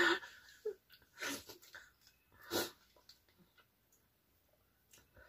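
A woman sneezing three times into her hand, about a second and a half apart, after eating spicy sambal with raw garlic and shallots.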